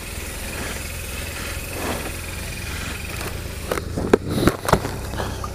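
BMW touring motorcycle moving off slowly, its engine a low steady rumble, with a few short knocks about four seconds in.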